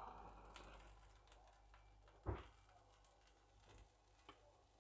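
Near silence with one soft thump about halfway through as a metal spatula sets an omelette sandwich down onto a plate, and a few faint ticks around it.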